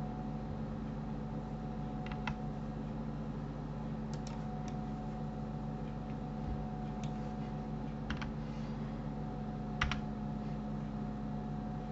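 A handful of scattered clicks from a computer keyboard and mouse, the loudest near the end, over a steady electrical hum.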